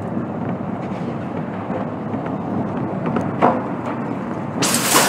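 Tornado roar: a steady, dense rumble of wind, with a short louder hiss about three and a half seconds in and a sudden, much louder rush near the end.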